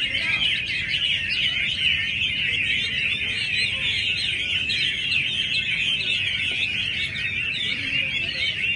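Many caged Chinese hwameis singing at once: a dense, unbroken chorus of fast, high warbling and whistled phrases.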